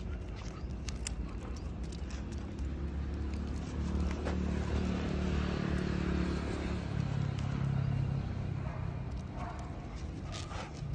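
A motor vehicle passing on the road: engine and tyre noise swell about four seconds in and fade after about eight seconds, with a few small clicks over it.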